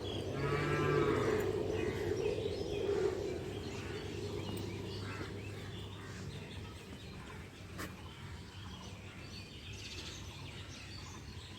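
Birds chirping and calling over a steady outdoor background hum.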